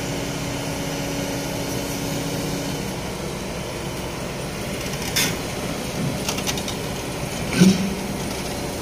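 Kobelco SK220 hydraulic excavator's diesel engine running steadily as the machine crawls on its tracks onto a lowbed trailer. There is a sharp knock about five seconds in and a louder one about a second before the end.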